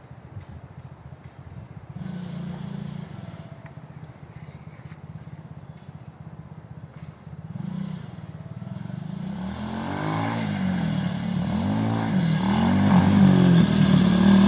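Quad ATV engine running, low and steady at first. From about nine seconds in it grows much louder, its pitch rising and falling again and again as the throttle is opened and eased off.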